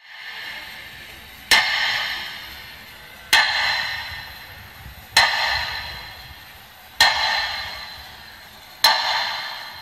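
A bell struck five times at an even, slow pace, about one stroke every two seconds, each stroke ringing out and fading before the next.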